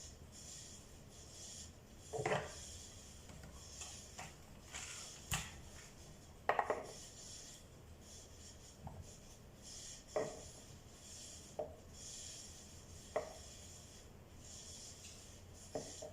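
Handling noise from a toy RC truck's plastic body and its rechargeable battery pack being joined and fitted in: about seven light knocks and clicks spread out, with rubbing and rustling between them.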